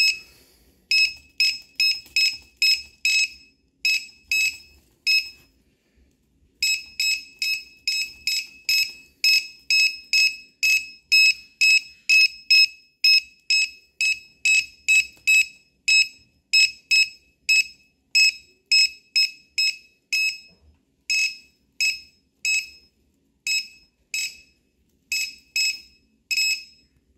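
Laptop keyboard tester beeping, one short high-pitched beep per key press, as keys are pressed one after another at about two a second, with a pause of about a second six seconds in. Each beep shows that the key's contact closes the circuit, so the key works.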